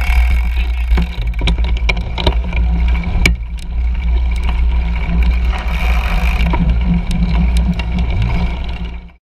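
Cyclocross bike ridden fast over a grass course, heard through a stem-mounted GoPro: a steady low rumble of wind and vibration with scattered sharp clicks and knocks from the bumpy ground. The sound cuts off abruptly near the end.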